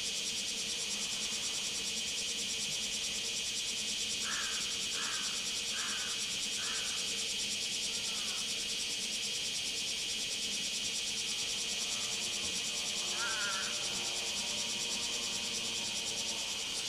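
Cicadas buzzing steadily in a dense, finely pulsing drone. A bird gives about five short falling chirps, one after another, about four to eight seconds in, then a single warbled call a little past the middle. A faint, steady low hum runs underneath.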